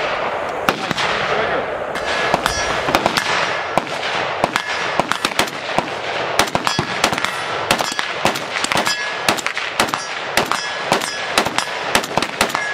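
Rapid semi-automatic rifle fire, including a Ruger Mini-14 in an ATI Strike Force stock, shots coming two or three a second, with steel targets clanging and ringing on hits.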